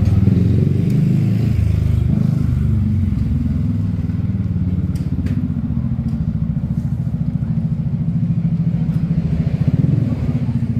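A motorbike's engine running in the street, a steady low rumble.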